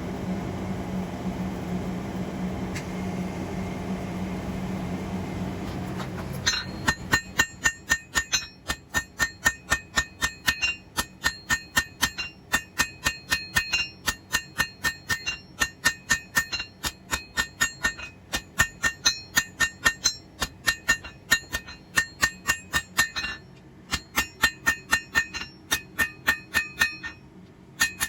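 A steady hum for about the first six seconds, then a blacksmith's hammer striking a hot steel bar on an anvil, about two ringing blows a second with a few short pauses, drawing the half-inch square bar out to a point.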